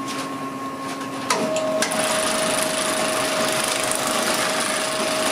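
Bag-closing sewing machine stitching shut the top of a filled rice bag. It starts with a sharp knock about a second in, then runs steadily with a constant tone.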